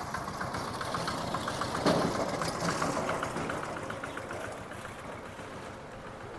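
Single-cylinder diesel engine of a two-wheel walking tractor towing a trailer, chugging in a rapid even beat as it passes and then fading as it moves away. A brief louder sound comes about two seconds in.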